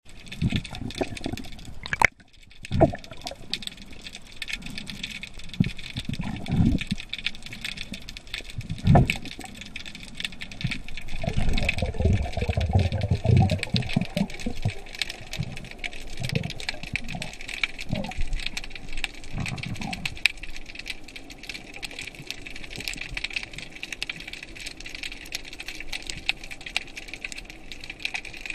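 Underwater sound picked up by a submerged camera: a steady crackling hiss dense with fine ticks, broken by a few sharp knocks and by low rushing surges of water and movement against the camera.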